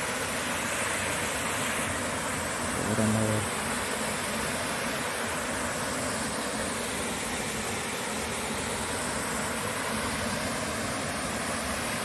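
Waterfall pouring down a rock face into a pool: a steady, even rush of falling water. A short low-pitched sound cuts in briefly about three seconds in.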